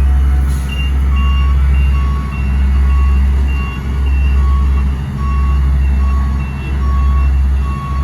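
Reversing alarm on road-paving machinery beeping steadily, about once a second, over the loud, pulsing low rumble of heavy diesel engines.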